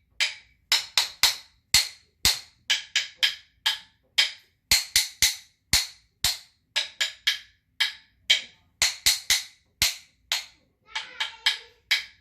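Wooden rhythm sticks struck together, tapping out a rhythm pattern of sharp, dry knocks in little groups of two and three with short pauses between. The pattern imitates a woodpecker pecking.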